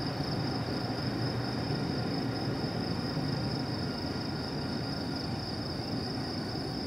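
Steady low rumble of diesel freight locomotives in a rail yard, under a steady high-pitched drone of night insects.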